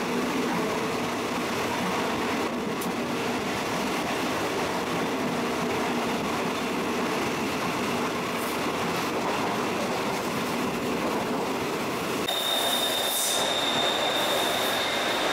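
Steady running noise of a passenger train heard from inside the carriage. About twelve seconds in it changes to an elevated metro train passing along a platform, with a steady high-pitched whine over the rolling noise.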